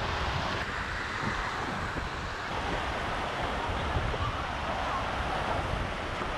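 Steady wash of sea surf, with wind buffeting the microphone in an uneven low rumble. Faint distant voices can be heard behind it.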